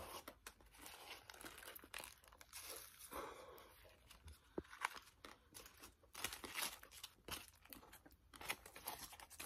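Foil wrapper of a Klondike ice cream bar crinkled and crumpled in the hands, an irregular run of crackles.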